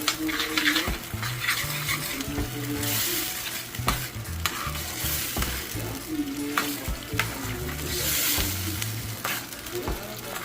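A spoon stirring a pot of brown stew sauce that is sizzling and simmering on the stove, with scattered knocks of the spoon against the pot. The sizzle swells twice, about three seconds in and again near eight seconds.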